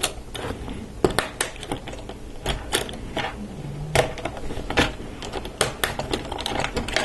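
Plastic LEGO Technic parts clicking and knocking as axles are pushed through the holes of the beams and the model is handled: irregular sharp clicks and taps.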